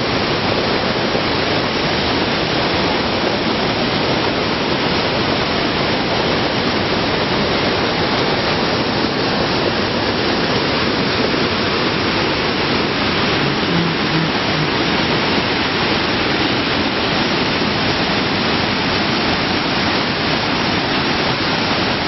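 Small waterfall and stream swollen with muddy floodwater, rushing over rocks: a loud, steady rush of water that does not change.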